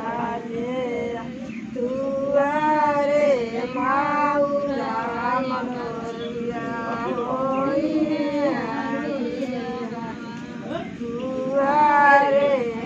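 A group of women singing a folk song together without accompaniment, in long, wavering, drawn-out phrases.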